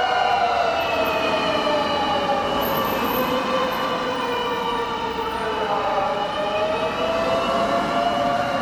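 Fire engine's mechanical motor siren wailing. Its pitch slowly winds down over about five seconds, then winds back up.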